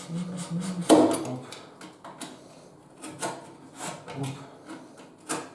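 Wooden cabinet panels being handled and fitted: several short knocks and clunks of wood on wood, the loudest about a second in, with rubbing and scraping between them.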